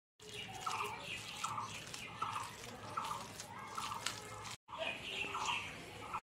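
Wet squelching of a hand squeezing and kneading chopped skunkvine leaves into a paste in a steel bowl, in an even rhythm of about one squeeze every second or less. The sound cuts out briefly about four and a half seconds in.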